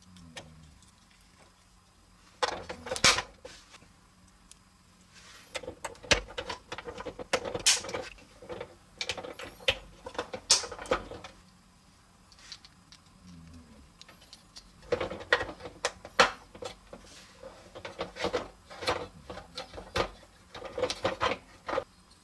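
Hard plastic toy fire truck parts clicking, rattling and snapping together as they are fitted by hand, in three spells of handling with short pauses between.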